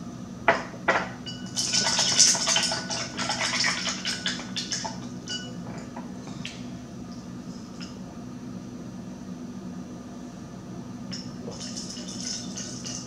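A straw stirring a drink in a glass, clinking and rattling against the glass, busiest for a few seconds near the start, then only scattered taps with a little more rattling near the end.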